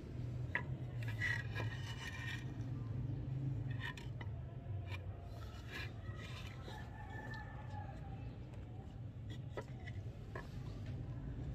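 A bird calling twice, each call a pitched cry lasting a second or more, over a steady low hum, with a few scattered clicks.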